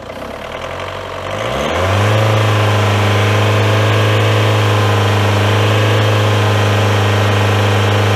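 Car engine revved up from idle over about two seconds, then held steady at raised revs, around the 2,500 rpm the battery tester's charging-system test asks for, so the alternator's output can be checked.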